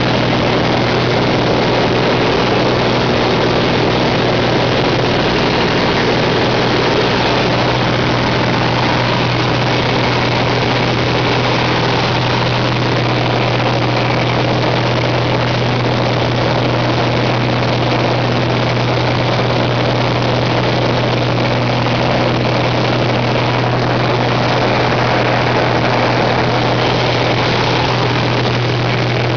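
Biplane's piston engine and propeller running steadily, heard from the cockpit as a loud, unchanging drone: a strong low hum over a dense rushing noise.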